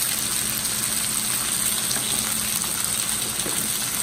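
Chicken breast fillets sizzling steadily in oil in a frying pan as they brown.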